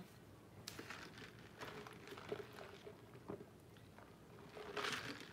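Quiet room with a few faint clicks and rustles, then near the end a soft sip through a plastic straw from a large paper fountain-drink cup.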